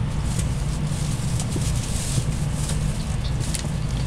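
Interior noise of a 700A-series Tokaido Shinkansen car underway: a steady low rumble with a hiss over it and a few faint rattles.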